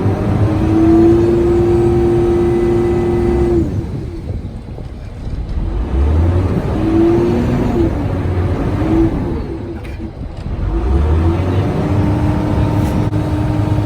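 Canal tour boat's engine running, its hum swelling and easing off three times over a steady low rumble.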